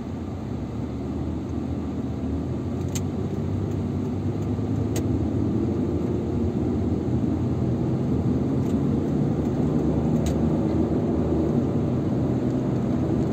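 Car engine and road noise heard from inside the cabin, growing steadily louder as the car pulls away and picks up speed, with a few faint ticks.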